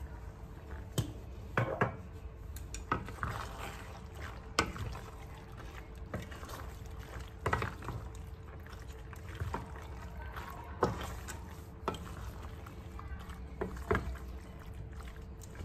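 Wooden spoon stirring thick, creamy penne pasta in a stainless steel pot: wet squelching and slopping, with irregular sharp knocks of the spoon against the pot.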